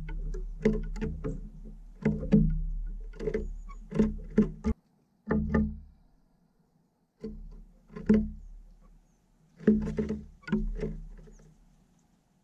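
Eurasian jay pecking and hammering at sunflower seeds on the wooden floor of a bird feeder: irregular sharp knocks on wood, each with a dull thud, coming in quick runs with short pauses.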